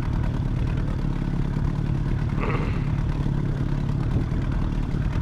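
Boat outboard motor running steadily at trolling speed, a low even drone.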